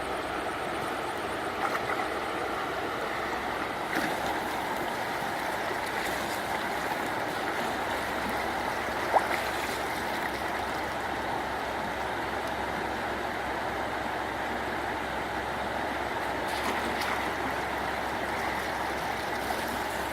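Steady rush of flowing water, with a few brief knocks and one sharp click about nine seconds in.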